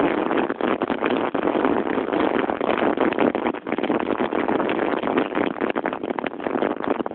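Snowboard sliding and scraping down a snowy slope, with wind rushing over the microphone: a loud, dense rush broken by many short scrapes and knocks as the board runs over fresh snow on a frozen base.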